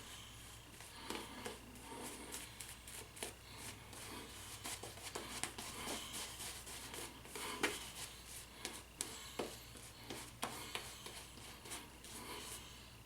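Shaving brush scrubbing lather onto a week's stubble: rapid scratchy rubbing with wet squishing and scattered small clicks.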